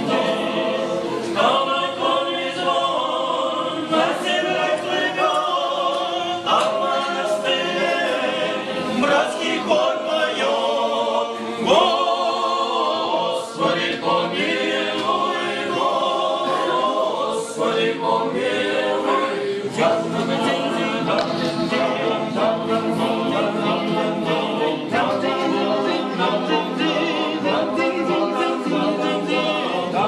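A group of Orthodox monks, all men's voices, singing a song together a cappella, without accompaniment.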